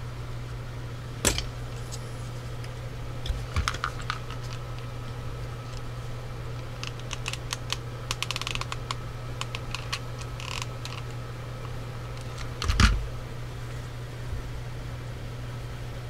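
Small plastic ionizer modules and their cardboard mount being handled, with a hot glue gun in use: scattered light clicks and taps over a steady low hum, and a louder knock about thirteen seconds in.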